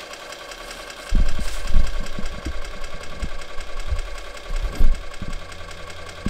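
Small electric fuel pump running steadily with a fine, fast ticking whine, turned down to a low setting after priming the reservoir. Several low thumps and knocks come in from about a second in.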